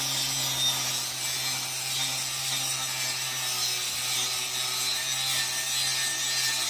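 Compressed air hissing steadily from an air hose into a truck tire mounted on its rim, with a steady low hum underneath.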